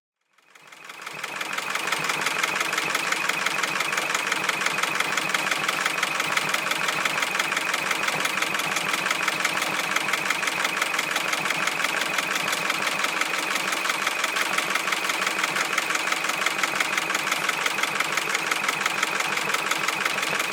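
Eight-needle CNC embroidery machine stitching a design, a rapid, even clatter of the needle bar. The sound swells over the first second or two as the machine comes up to speed, then holds steady.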